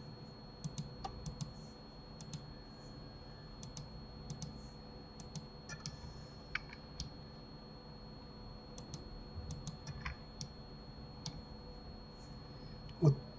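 Computer keyboard keys and mouse buttons clicking in scattered, irregular taps.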